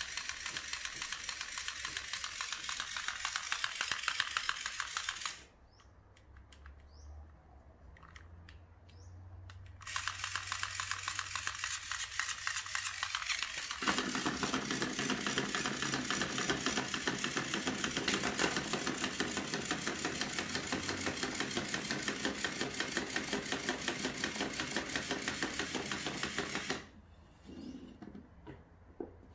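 Battery motor unit of an electric flopping-fish cat toy, out of its plush body, running with a rapid mechanical rattle as its wagging arm swings. It stops for about four seconds a few seconds in, then runs again, fuller from about halfway through as it rattles on the wooden tabletop, and stops shortly before the end.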